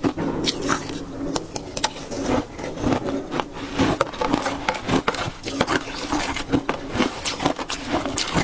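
Close-up crunching and chewing of ice, many sharp irregular crunches in quick succession.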